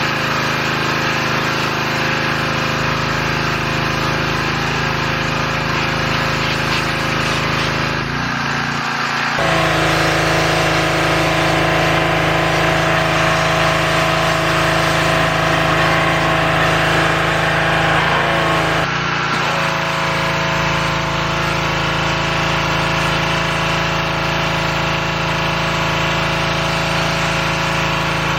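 Pressure washer running steadily with an engine-like drone and spray hiss. Its sound shifts about eight seconds in and again near the eighteen-second mark, and is a little louder in between.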